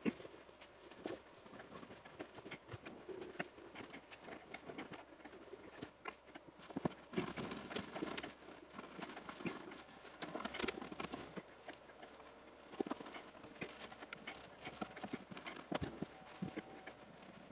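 Painted motorcycle bodywork panels and fuel tank being hand-polished with a cloth: scuffing of cloth on the paint, with irregular light knocks as the parts are picked up, turned and set down on a bed.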